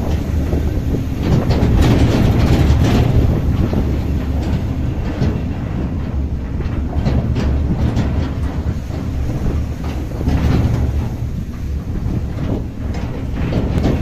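Vehicle driving over a rough gravel mountain road, heard from inside the cabin: a steady low rumble of engine and tyres with irregular knocks and rattles as the body jolts over stones and ruts.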